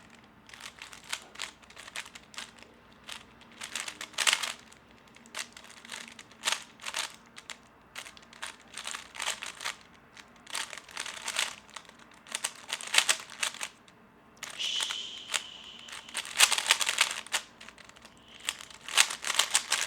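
3x3 Rubik's cube being turned fast in a speedsolve: rapid plastic clacking of the layers in bursts, with short pauses between move sequences. A brief steady high tone sounds about three-quarters of the way through.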